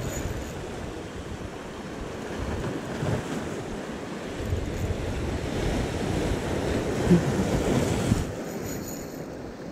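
Sea waves washing and breaking against the rocks of a breakwater, with wind buffeting the microphone. The surge builds and then falls away sharply about eight seconds in.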